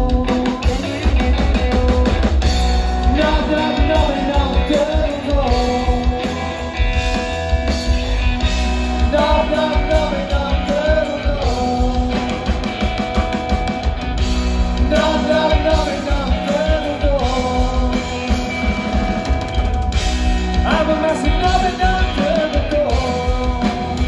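Live rock-and-roll band playing: electric guitar, upright double bass and drum kit keeping a steady beat, with a male lead vocal singing over them.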